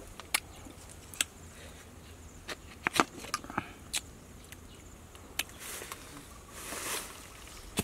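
Plastic jar and its screw lid being handled and opened: scattered short clicks and knocks, the loudest about three seconds in, with a brief rustling swell near the end.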